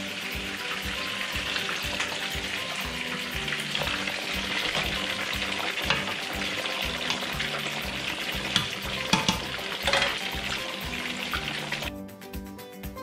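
Fish sizzling as it fries in oil in a pan, under background music with a steady beat. A few sharp clinks of a utensil in the second half; near the end the sizzling stops and only the music remains.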